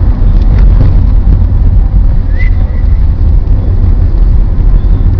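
Car driving, heard from inside the cabin: a steady, loud low rumble of engine and road noise with wind buffeting on the microphone. A brief high chirp sounds about two and a half seconds in.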